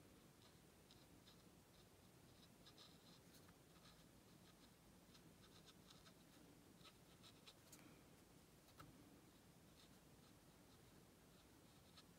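Near silence, with faint, scattered soft scratches of a water brush pen's tip stroking over textured watercolour paper.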